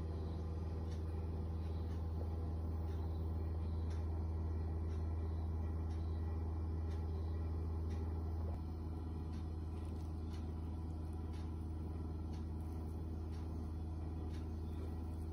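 A steady low hum, the kind a running appliance or electrical mains gives, with faint ticking above it. It drops slightly in level about eight and a half seconds in.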